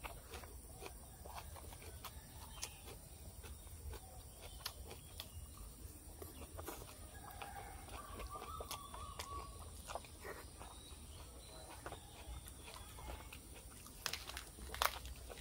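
Close-miked chewing and mouth smacking of a person eating pig-ear salad, with many small scattered clicks from crunching and a fork in the food. A louder cluster of clicks and rustles near the end comes as a lettuce leaf is torn.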